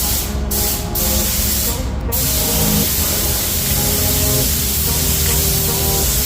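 Spraying hiss: three short bursts, then a continuous spray from about two seconds in, over background music.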